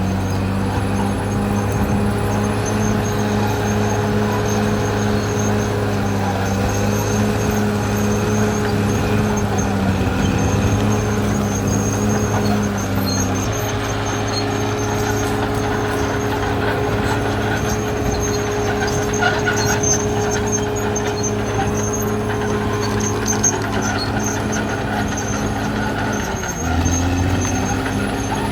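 Caterpillar D6R XL bulldozer's diesel engine running steadily under work, its note shifting about halfway through and dipping briefly near the end.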